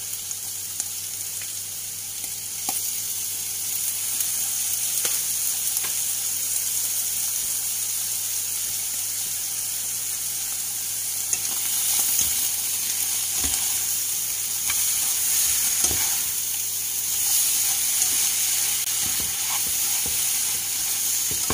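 Termite mushrooms and eggs sizzling in hot lard in a nonstick pan: a steady high hiss, with a few light knocks in the second half.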